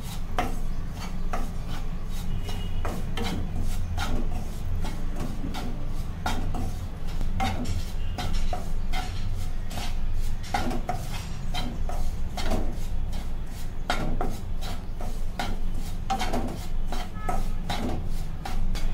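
Wooden spatula scraping and stirring fine semolina in ghee around a non-stick kadhai, dry-roasting it over medium flame, in repeated rubbing strokes a few a second. A steady low hum runs underneath.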